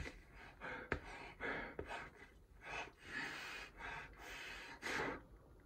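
A man breathing hard in and out through a single-layer nylon–polyurethane fabric face mask, a series of short puffs and one longer breath near the middle. The fabric is hard to breathe through and gets sucked against the mouth.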